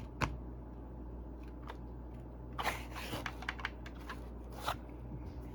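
A few sharp clicks and a short run of rattling, handling noise about halfway through, over a steady low electrical hum.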